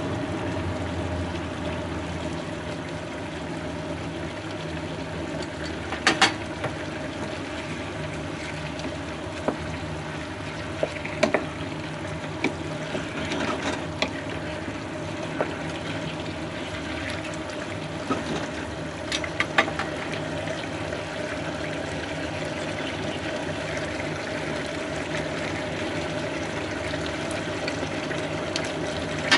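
Sauce bubbling steadily in a frying pan of simmering daikon and pork, over a constant hum. A utensil clinks sharply against the pan a few times, about six, eleven, fourteen and nineteen seconds in.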